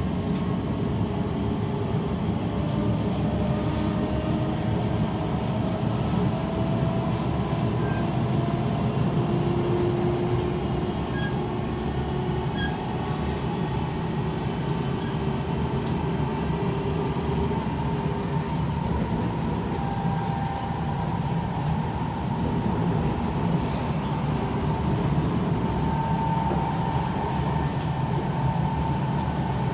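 Kawasaki C151 metro train running, heard from inside the carriage: a steady rumble of wheels on the track under the whine of the traction motors. The motor whine rises slowly in pitch over the first several seconds as the train gathers speed, then holds steady.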